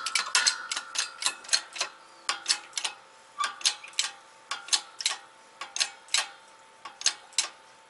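Hand-pumped bottle jack on a hydraulic shop press, clicking sharply and metallically about three times a second with each stroke of the handle, the clicks thinning out toward the end. It is pressing a wheel bearing race into a brake rotor until it seats at the bottom.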